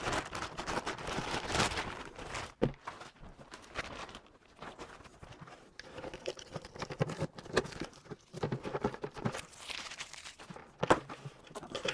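A clear plastic bag crinkling as it is pulled off a black plastic canister antenna, then scattered clicks and knocks from handling the plastic housing, with a sharp knock about two and a half seconds in and another near the end.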